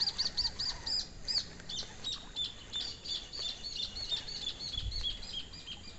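A bird calling: a run of short, high, arched notes repeated a few times a second, then from about two seconds in a faster series of slightly lower chirping notes.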